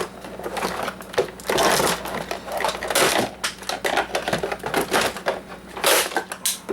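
Plastic housing of an Oster coffee maker being pried and broken apart, with irregular cracks, snaps and scraping clatter, loudest about halfway through and again near the end.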